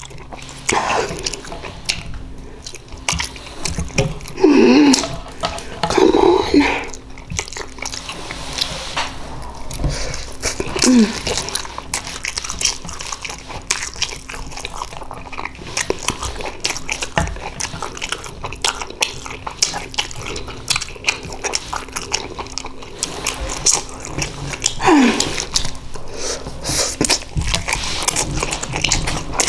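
Close-miked mouth sounds of eating ramen noodles: irregular wet chewing and lip-smacking clicks, with a few short sounds that drop in pitch.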